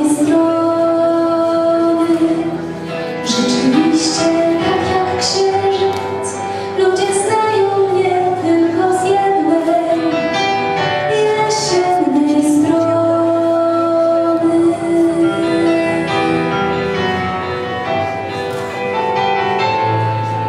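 Music with a woman singing, holding long notes that slide between pitches.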